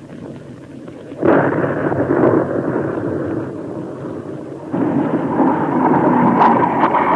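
Two heavy artillery explosions, each a sudden boom followed by a long rolling rumble: one about a second in, the second near five seconds in.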